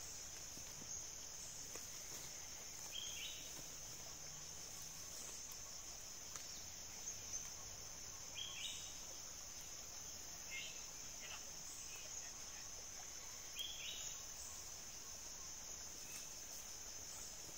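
Steady high-pitched drone of insects in forest, with a short chirp every few seconds.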